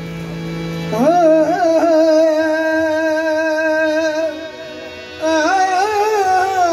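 Qawwali singing: a man's voice holding long, slowly wavering sung notes over a steady harmonium drone. One long phrase runs from about a second in to past the middle, and a second begins about five seconds in.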